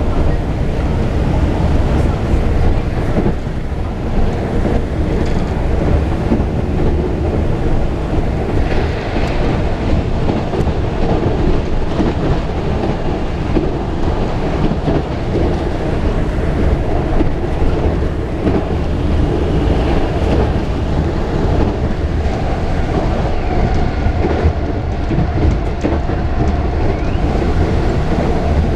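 Washington Metro rail car running at speed, heard from inside the car: a steady, loud rumble of the wheels on the rails.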